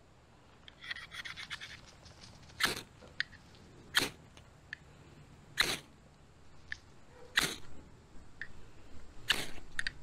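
A knife spine struck down a ferrocerium rod to throw sparks onto tinder: five sharp scrapes about every one and a half to two seconds, with a lighter one just before the end. Light scratching is heard about a second in.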